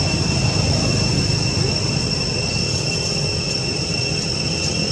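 Steady, unbroken high-pitched drone of insects, over a low rumble.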